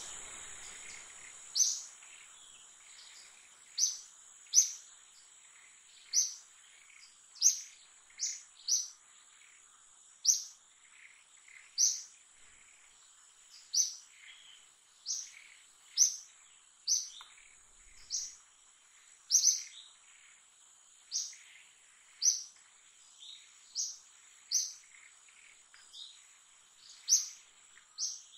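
A bird calling over and over with short, sharp, high chirps, one every second or two, over a steady high-pitched whine.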